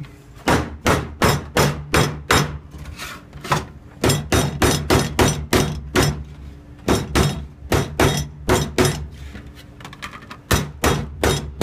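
Hammer striking sheet copper in quick runs of blows, about three a second, with short pauses between the runs.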